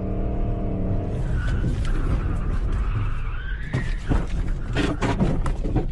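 Car engine heard from inside the cabin, holding a steady note, then a tire squeal that rises slightly in pitch for about two seconds. A quick series of knocks and thumps follows from about four seconds in.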